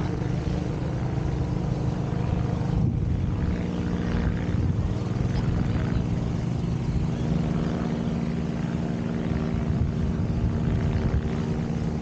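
An engine drones steadily at an even pitch over a low rumble.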